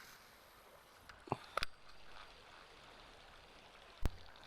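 Faint outdoor background hiss with a few short sharp clicks or knocks: two about a second and a half in and one louder one near the end.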